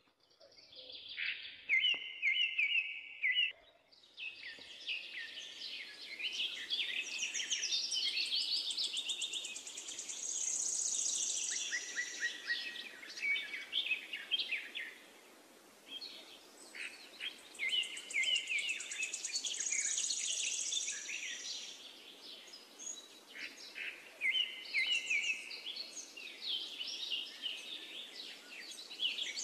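Several songbirds chirping and trilling, their calls overlapping almost continuously, with a brief lull around the middle.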